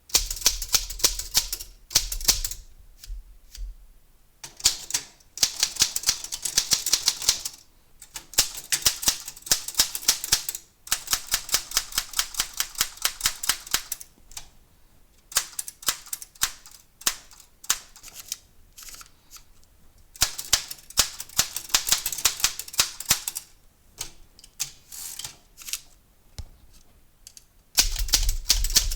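Royal manual typewriter being typed on in runs of rapid keystroke clacks with short pauses between them. This is a type test of the freshly cleaned and reassembled machine.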